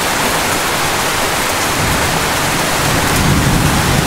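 Heavy thunderstorm rain falling steadily, a dense even hiss, with a low rumble swelling in the second half.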